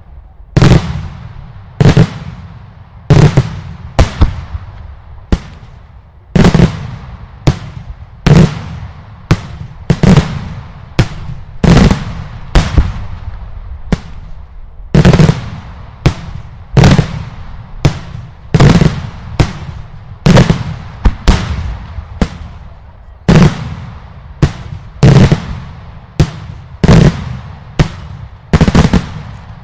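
Daylight fireworks: a rapid, irregular run of loud aerial shell bursts, about one to two sharp bangs a second, sometimes in quick pairs. Each bang trails off in a low, rumbling echo.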